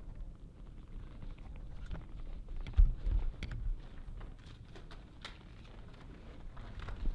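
Wind buffeting an outdoor microphone in low gusts, with scattered crunching footsteps and rustling, and a heavy thump a little under three seconds in.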